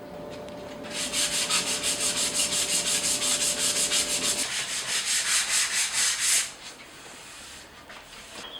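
Sanding a wooden cladding piece, gently smoothing its dried first coat of finish before the second coat: quick, even back-and-forth rubbing strokes that start about a second in and stop a little after the middle.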